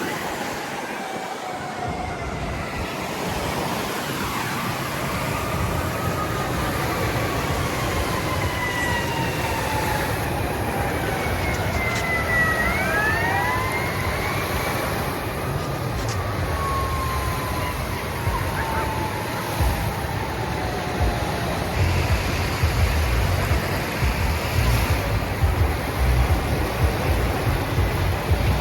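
Steady rush of water with an emergency-vehicle siren wailing over it, its pitch sliding slowly down and up again before it fades out about three quarters of the way through. A low rumble grows stronger near the end.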